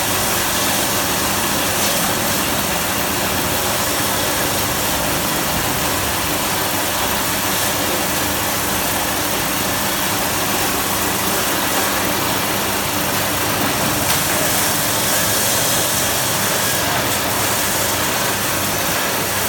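Motorised fish-bait cutting machine running steadily, its motor and cutter making an even, loud mechanical noise.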